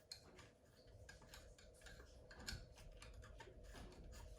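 Faint, irregular clicking and scraping of a cleaning tool worked around the lug raceways inside a rifle's receiver.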